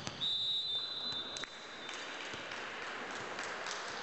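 Referee's whistle blown once and held for about a second, ending a volleyball rally, followed by crowd applause.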